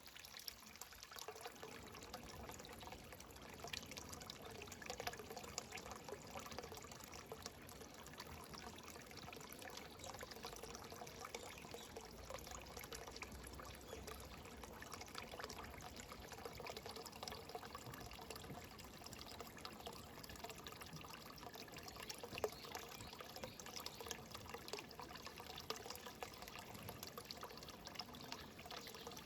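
Faint steady trickle of running water.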